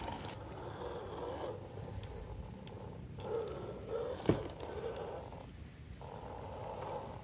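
RGT EX86100 V2 1/10-scale RC crawler's electric motor and drivetrain whining as it crawls over wet rocks, the pitch rising and falling with the throttle. A sharp knock about four seconds in, as a tyre or the chassis hits rock.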